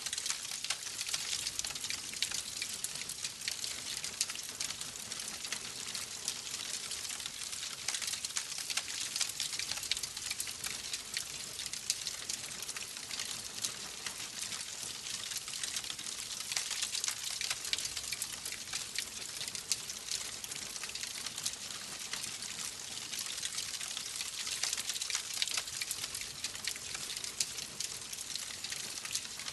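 Wood fire burning in a fireplace, crackling steadily with many small irregular pops over a soft hiss.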